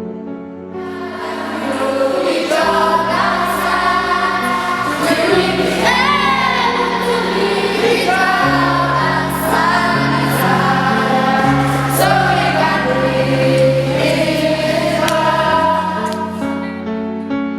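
Gospel-style music: a choir singing a melody over sustained keyboard chords and a bass line, swelling about two seconds in and easing back near the end.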